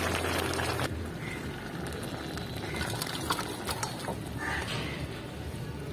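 Gourd and fish curry bubbling in a karai for about a second, then, after a cut, the cooked curry being tipped and scraped out of the karai into a steel bowl, with a few light clinks of metal on metal.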